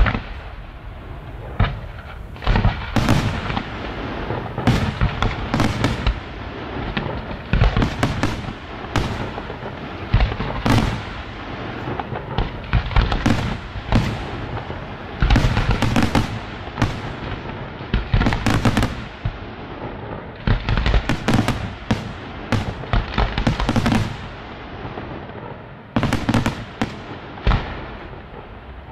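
Fireworks display: aerial shells bursting with loud bangs, at times several a second, over a constant noisy din. The bangs die down in the last couple of seconds.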